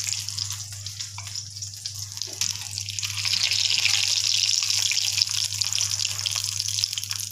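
Hot oil sizzling and crackling around potato cutlets shallow-frying in a small pan, growing louder from about three seconds in.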